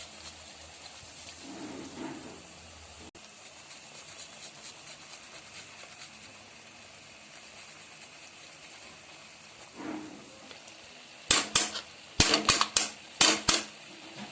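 Garlic being grated on a hand grater over the cooking pot: a quick run of about eight loud, short grating strokes near the end, over a faint steady sizzle from the pan.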